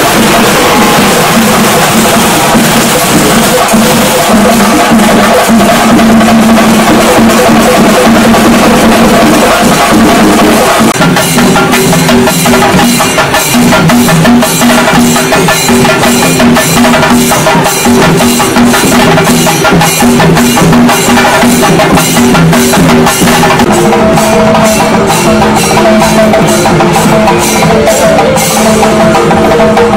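Loud music: sustained held tones, with a steady beat of sharp percussion strikes coming in about eleven seconds in.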